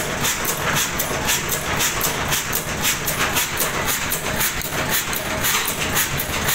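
Ruston & Hornsby stationary diesel engine running steadily, with a fast, even mechanical clatter of several beats a second.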